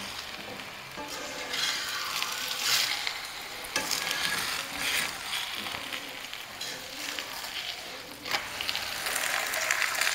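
Chicken keema paratha sizzling in oil on a flat tawa, with a few short scrapes of a spatula working it on the pan.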